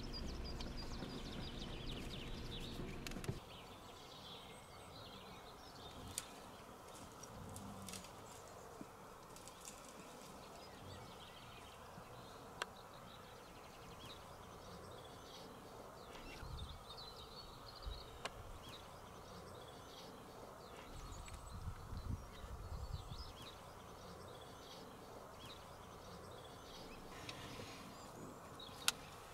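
Faint open-air ambience with small birds chirping now and then, a few soft low rustles and clicks. A steady low hum cuts off suddenly about three seconds in.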